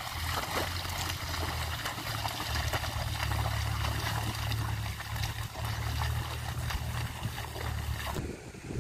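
Sloshing and splashing of muddy water as a pair of oxen draw a plough through a flooded paddy field, with wind rumbling on the microphone. The splashing stops about a second before the end.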